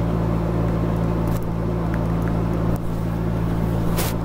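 Steady low electrical hum made of several pitches. A few faint taps, from a stylus on a drawing tablet, come through as handwriting is written.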